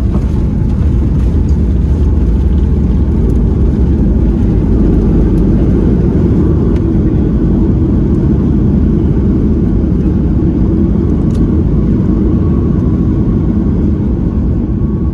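Loud, steady low rumble of a Boeing 737-8 MAX airliner heard from inside the passenger cabin, easing off slightly near the end.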